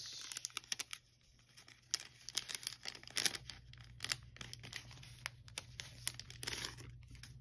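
Thin clear plastic packet crinkling and crackling in the fingers as it is worked open: a run of small, irregular crackles, with a longer rustle near the end.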